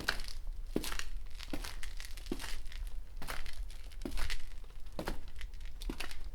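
Footsteps on concrete at a steady walking pace, about one step every 0.8 seconds, each step a short scuff.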